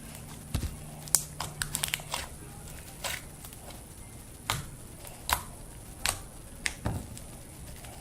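Homemade Elmer's glue and Tide detergent slime being poked, squished and stretched by hand, giving irregular sharp pops and crackles, a quick cluster about a second in and then single pops every second or so.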